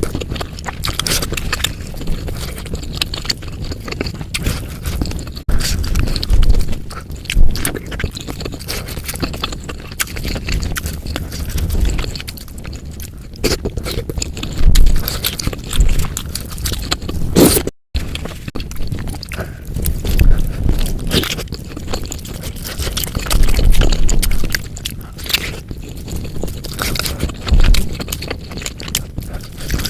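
Close-miked ASMR eating of spicy bakso (Indonesian meatball soup): irregular chewing and biting with scrapes, likely of a spoon against the bowl. There is a brief dropout to silence about 18 seconds in.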